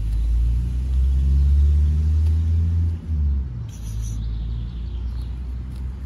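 Low, steady rumble of a motor vehicle's engine, loudest for the first three seconds, then easing off.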